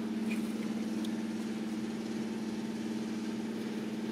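A steady low hum of an engine running at idle, holding one even pitch throughout, with a few faint ticks over it.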